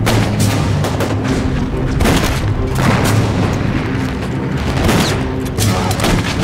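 Film battle sound effects: rifle shots and booms at irregular intervals over a steady music score.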